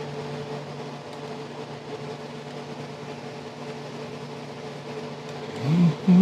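Steady machine hum made of a few even, unchanging tones over a light hiss, with no knocks or strokes. It is typical of a room fan or air-conditioning unit running.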